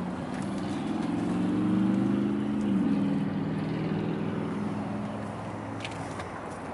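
A motor vehicle's engine going by, growing louder and then dropping in pitch about three seconds in as it fades.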